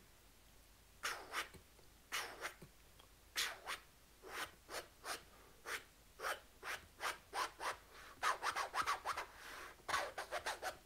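A person beatboxing into a cupped hand: short, sharp percussive hits, sparse at first, then quickening into a fast run of hits near the end.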